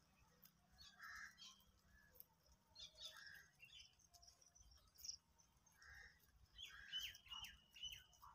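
Faint chirping of small birds: scattered short calls, then near the end a quick run of three or four sharp, downward-sweeping chirps.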